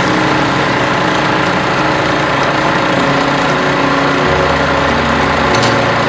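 KJW 116 universal industrial sewing machine running steadily as it stitches a long hem, under background music.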